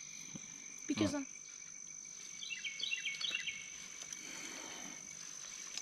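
Insects droning steadily at two high pitches, with a bird singing a quick run of falling notes about two and a half seconds in. A brief voice sound comes about a second in.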